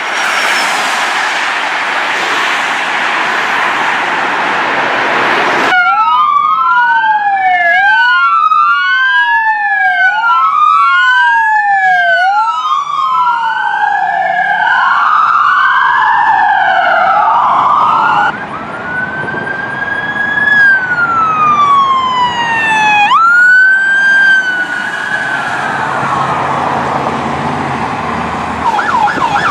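Emergency vehicle siren sound effects. After a few seconds of steady noisy rush, a siren wails up and down about every two seconds, then changes to slower single rising and falling sweeps, and switches to a fast yelp right at the end.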